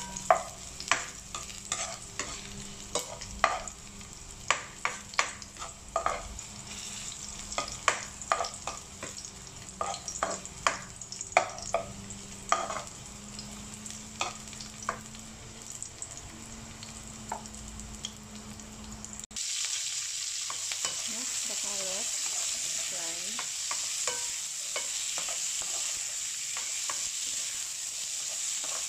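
Sliced garlic frying gently in oil in a nonstick wok, a spoon scraping and knocking against the pan in irregular strokes over a low steady hum. About two-thirds of the way through it cuts to a louder, steady sizzle as carrot sticks stir-fry with the garlic.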